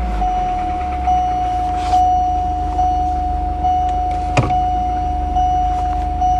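Volvo turbo engine running steadily, heard from inside the car, a low rumble with a steady whine over it. A single sharp click, like a switch, comes about four seconds in.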